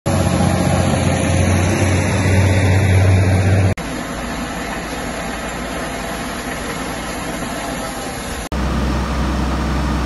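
Tractor engines running in the field, heard as three short clips joined with abrupt cuts about 4 and 8.5 seconds in. The first clip has a strong steady low engine hum; the middle one is quieter; the last is a different steady low hum.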